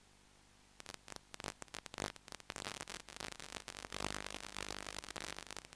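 Dense, irregular crackling static, starting about a second in and stopping near the end.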